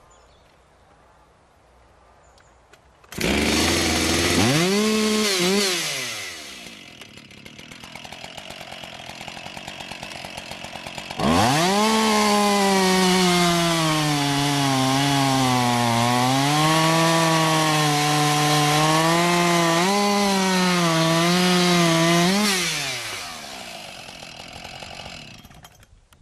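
Husqvarna 576XP AT two-stroke chainsaw revving briefly about three seconds in and dropping back to idle, then held at full throttle from about eleven seconds while cutting through a 350 mm log, its pitch sagging and wavering under load. The throttle is released near the end and the saw falls back to idle.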